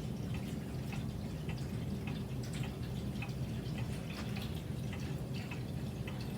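Steady low room hum with faint, irregular small clicks scattered through it.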